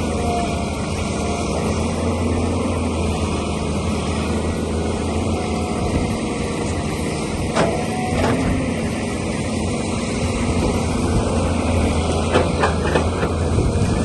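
Heavy machinery engine running steadily with a low drone, with a couple of sharp knocks about halfway through and a short cluster of them near the end.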